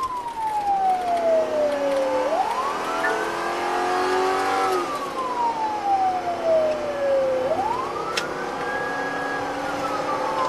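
Police siren on a slow wail, sliding down and then sweeping back up roughly every five seconds, with a car engine running beneath it.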